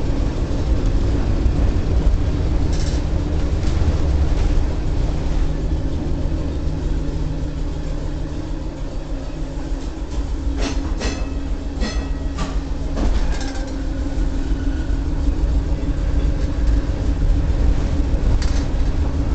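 1923 Brill trolley car running along the track, heard from on board: a steady rumble with a steady hum. About ten seconds in, a quick run of clicks and knocks as the wheels pass over the track, followed by a faint brief squeal.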